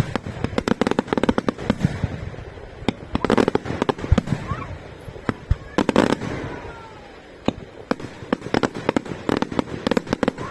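Aerial fireworks display: a rapid series of sharp bangs and crackling shell bursts, densest about three and six seconds in, with a few faint whistles falling in pitch.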